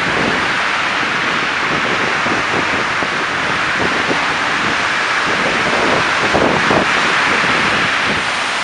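Steady hiss of city traffic on slushy streets, with wind buffeting the microphone in gusts.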